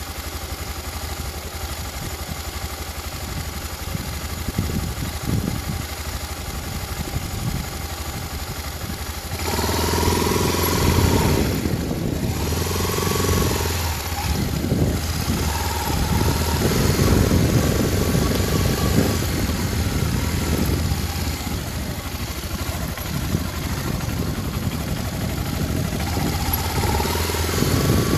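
Honda XRE300 single-cylinder motorcycle engine running and revving as it rides around a dirt lot, getting louder about nine seconds in, with short rising and falling revs.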